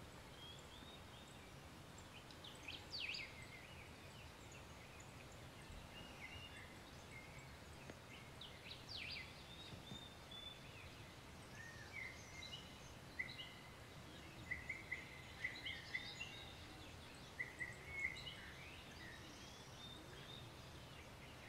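Faint birds chirping and calling in scattered short notes and brief trills, more often in the second half, over steady low background noise.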